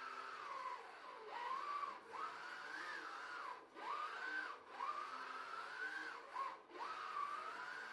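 Electric motor whine that repeatedly rises and falls in pitch, cutting out briefly a few times.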